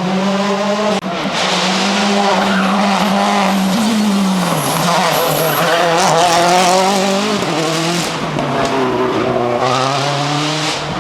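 Ford Fiesta RS WRC rally car's turbocharged four-cylinder engine running hard at high revs, its pitch sagging about four seconds in and then climbing back. The sound breaks off sharply for an instant about a second in.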